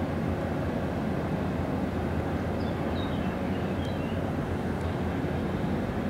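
Steady low rumble of an inland motor cargo ship's diesel engine, with the ship moving slowly ahead.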